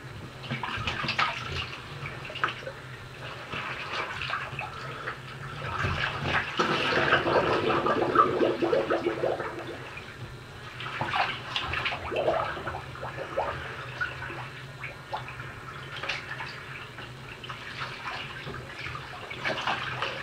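Bath water sloshing and splashing in a bathtub as a clothed person shifts about in it, coming in irregular swells, the longest and loudest from about six to ten seconds in, over a steady low hum.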